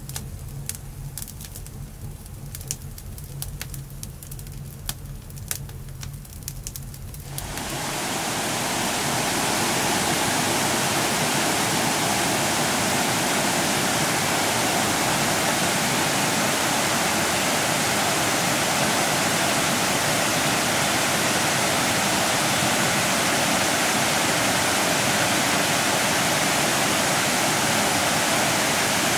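Wood fire crackling, with a low rumble and many sharp pops. About seven seconds in it gives way to the steady, loud rush of a forest stream tumbling over small cascades, which runs on unchanged.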